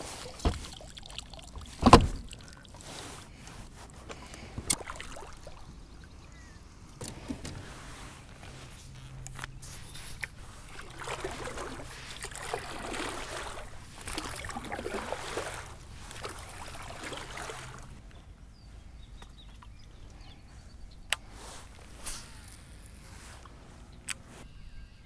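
Kayak paddle strokes swishing and splashing through shallow water, with a sharp knock of gear on the hull about two seconds in and a few smaller knocks. A faint low hum runs through the middle stretch.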